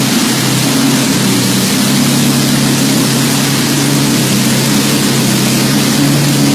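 V12 engine rumbling steadily at an unchanging speed, running smoothly: a low, even hum with a steady hiss over it.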